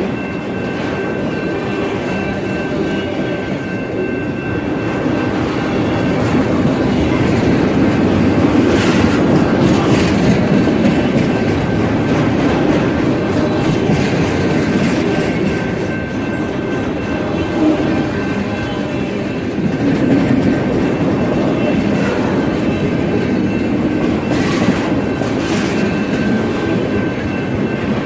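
Freight train of autorack cars rolling past: a steady rumble with wheel clatter, a few sharp clanks around nine to ten seconds in and again near the end, and faint steady high tones over it.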